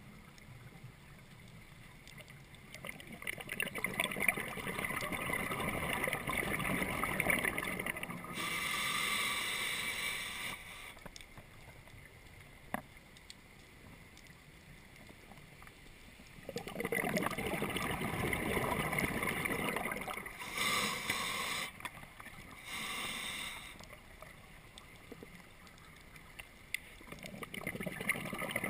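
Scuba diver breathing through a regulator underwater: long bubbling exhalations, each followed by a shorter high hiss of inhalation, twice over, with quieter pauses between breaths.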